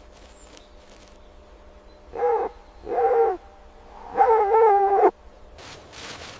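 An animal calling three times: two short calls, then a longer one of about a second.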